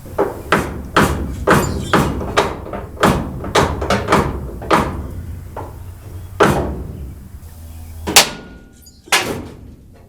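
Repeated hammer-type blows on the sheet metal of a 1972 Dodge van's front end, knocking loose a tightly wedged-on piece. About fifteen sharp, ringing strikes come at roughly two a second, then slow, with the hardest blow about eight seconds in.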